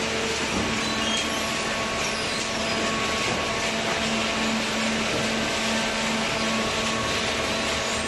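Industrial hydraulic cardboard baler and its inclined feed conveyor running: a steady mechanical noise with a constant hum.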